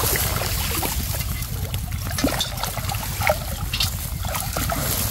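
Water splashing and trickling in short bursts as people wade in a shallow canal and set a fishing net, over a steady low rumble.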